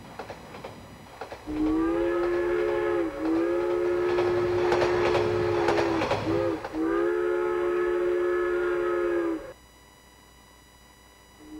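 Steam locomotive whistle sounding three long blasts, each a chord of several tones, with a loud hiss during the second blast. Faint clicking of train wheels comes before the first blast, and a fourth blast starts near the end.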